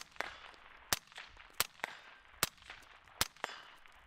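Suppressed IWI Tavor X95 5.56 rifle firing a steady string of semi-automatic shots through a Dead Air Sierra 5 suppressor, about one shot every three-quarters of a second. Each shot is followed a moment later by a fainter crack.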